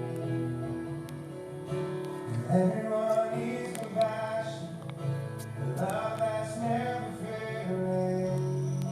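A Samsung Galaxy J7 Prime ringtone playing: a melodic tune of sustained notes, with new notes coming in every second or two.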